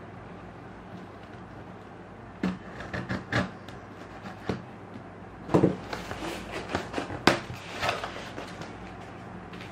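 Cardboard shipping box being handled and opened: a steady low hum, then a few knocks and taps on the box, and cardboard flaps being flexed and pulled open with crinkly scraping, loudest about halfway through.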